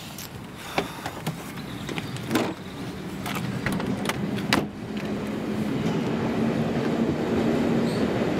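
A train running along the track behind the fence, its low rumble growing louder through the second half. Several sharp clicks and knocks sound in the first five seconds.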